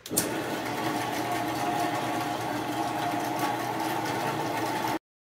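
Metal-cutting band saw switched on and running free with a freshly installed blade: motor and blade make a steady mechanical hum with a whine. It starts abruptly and cuts off suddenly near the end.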